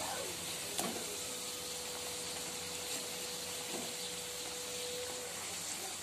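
Samosas deep-frying in hot oil in a kadai: a steady sizzle, with a short clink of the slotted spoon against the pan about a second in as they are turned. A faint steady tone runs underneath and stops about five seconds in.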